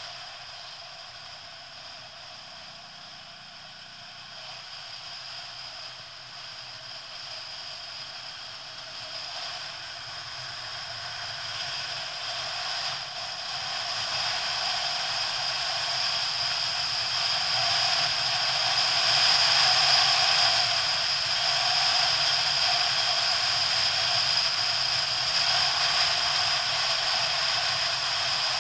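Motorcycle on the move, heard through its onboard camera as a steady rush of wind, road and engine noise with a thin high tone on top, growing louder through the stretch.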